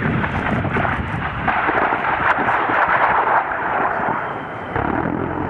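A long, rolling rumble of ordnance from an A-10 attack run on the demonstration targets, strongest for a second or two in the middle.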